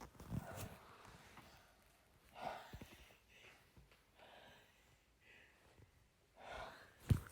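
A person's soft breathy gasps, about five over the few seconds, the build-up before a sneeze. A sudden loud burst comes right at the end, the sneeze breaking.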